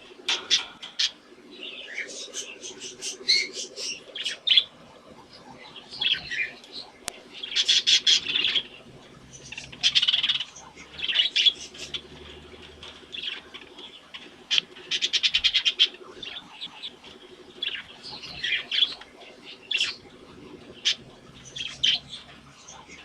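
Budgerigars chirping and warbling in quick, irregular bursts, with rapid buzzy chatter mixed in, over a faint steady low hum.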